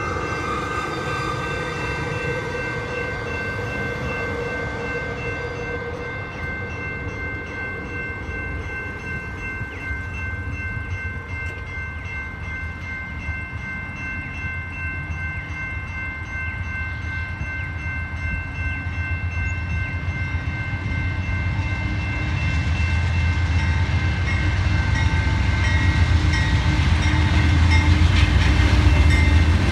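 Railroad crossing bell ringing steadily at an active level crossing, while a diesel locomotive approaches with a low rumble that grows louder over the last several seconds.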